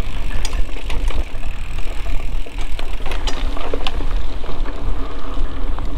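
Mountain bike tyres rolling over a dirt trail, with a steady low rumble of wind on the microphone and scattered small clicks and rattles.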